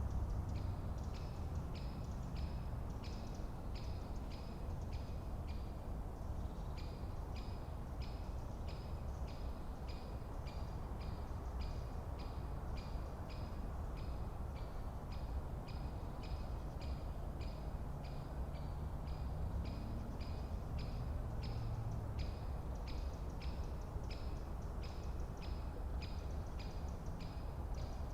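A bird repeating one short call about twice a second, with a brief pause about six seconds in, over a steady low rumble.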